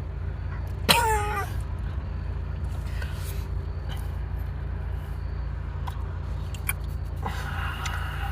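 A steady low hum, with a short vocal cry falling in pitch about a second in and a few faint ticks later.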